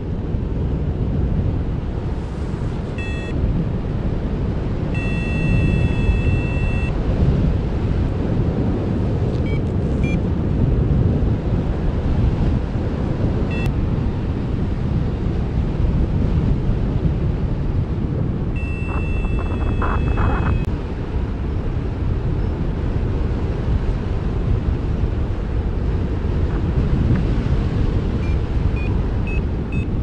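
Wind rushing over the microphone of a paraglider in flight, a steady low rush. A paragliding variometer beeps a few times: a held tone around 5 to 7 seconds in, another around 19 to 21 seconds, and a quick run of short beeps climbing in pitch near the end.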